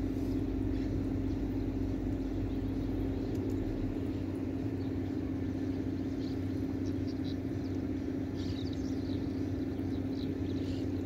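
A steady low motor hum drones on unchanged, with a few faint bird chirps from about six seconds in.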